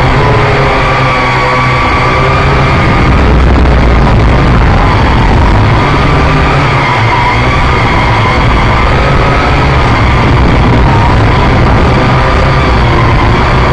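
Quadcopter's electric motors and propellers running loud and steady, a whine whose pitch wavers up and down as the throttle changes, over a low hum and hiss.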